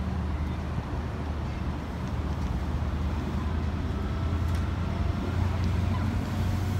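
LNER passenger train moving slowly past along the platform, giving a steady low rumble and hum with a faint whine above it. The rumble grows a little louder near the end.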